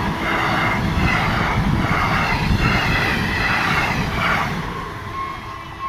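Indian Railways Intercity Express coaches passing close at speed: a steady rumble of wheels on rail with a rhythmic clatter, fading near the end as the last coaches go by.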